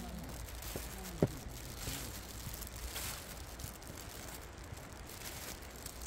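Footsteps crunching and rustling through leaf and cedar-needle litter on a forest floor, with one sharp click about a second in.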